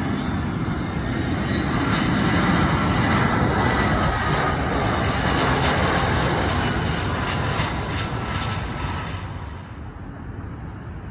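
Jet engines of an Allegiant Airbus A320-family airliner on final approach with gear down, passing low overhead: a rumbling jet noise with a faint whine that grows louder, peaks in the middle, then drops away near the end.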